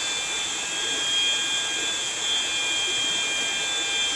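Tropical forest ambience: a steady high drone of insects such as cicadas, with the rush of river water beneath it.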